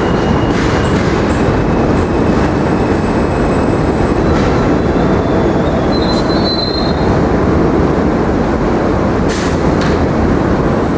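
R160A subway train pulling into the station and slowing to a stop: a steady heavy rumble of wheels on rail, with a brief high squeal about six seconds in and a short sharp burst of noise near the end.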